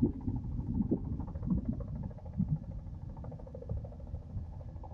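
Wind buffeting the microphone in uneven low gusts, over a faint steady drone of a distant engine.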